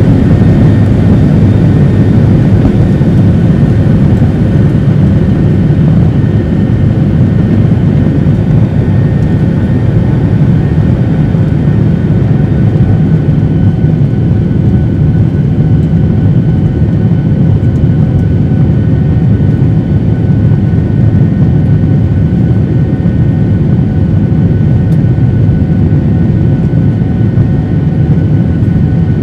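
Cabin noise of a Boeing 737-800 during liftoff and the initial climb, heard from a seat over the wing: its CFM56 turbofans at high power give a loud, steady deep rumble with a faint steady whine above it.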